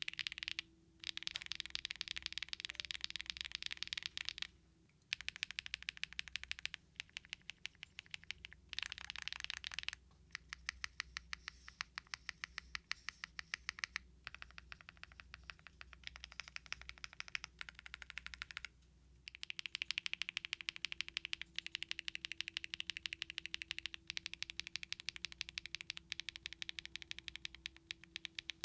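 Typing on a custom mechanical keyboard with stock HMX Emo linear switches and Cherry-profile ABS doubleshot keycaps, gasket-mounted on a PP plate: fast runs of key clacks broken by a few short pauses.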